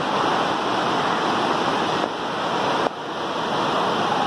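Steady hiss of heavy rain falling on the roof, an even wash of noise.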